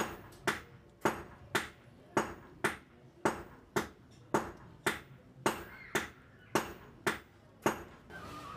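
Regular metal-on-metal hammer strikes, about two a second, each with a short bright ring, stopping near the end.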